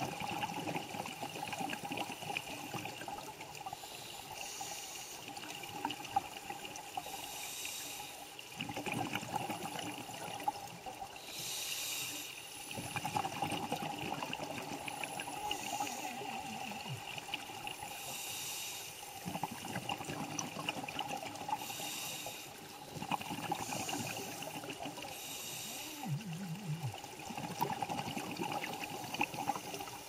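Scuba diver's regulator breathing underwater, every few seconds: a hiss on each inhale and a burst of bubbling on each exhale, over a constant fine crackle.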